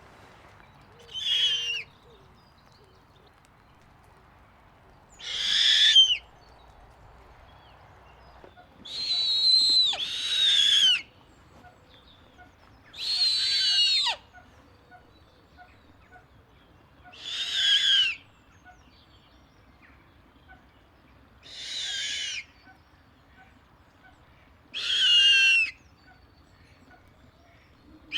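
Snowy owl giving harsh, raspy screeching calls, each about a second long, repeated every three to four seconds. Each call carries a falling whistle-like tone inside the rasp, and two calls come back to back near the middle.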